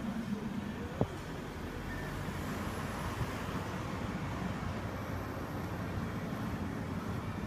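City street traffic noise, a steady wash of road sound, with one short sharp knock about a second in.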